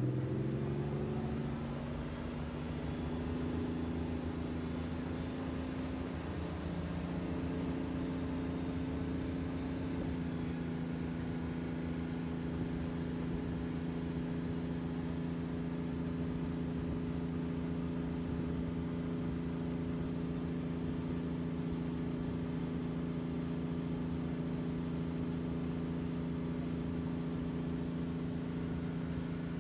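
Wakeboard tow boat's engine rising in pitch as it pulls the rider up out of the water, then running at a steady speed.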